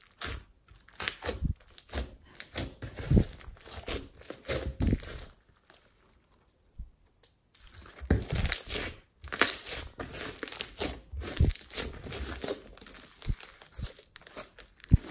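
Glossy slime mixed with foam beads being poked, squeezed and stretched by hand, making irregular wet crackling and popping. It goes quiet for about two seconds midway, then the crackling returns, densest just after the pause.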